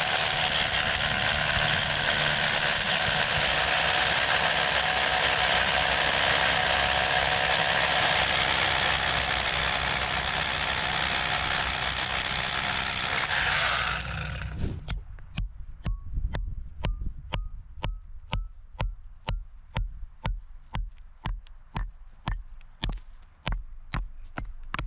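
Small handheld jackhammer hammering continuously into a boulder, breaking rock off it, for about fourteen seconds before it stops. After that come regular short knocks, about two a second.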